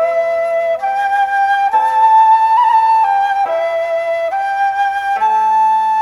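Background music: a slow melody of long held notes, changing pitch about once a second, over a steady lower held note.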